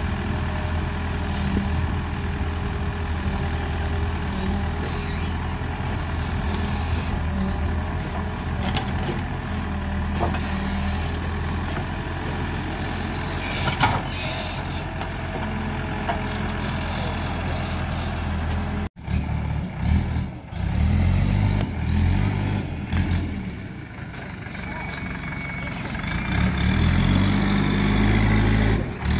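Heavy diesel machinery engine running at a steady speed. After an abrupt cut about two-thirds of the way through, a diesel engine rises and falls in speed as it works under load.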